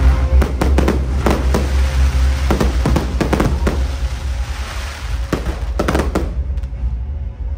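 Fireworks bursting in a rapid string of sharp bangs over loud music with a heavy bass line. The bangs come thick in the first few seconds, again around the fifth and sixth seconds, then thin out near the end.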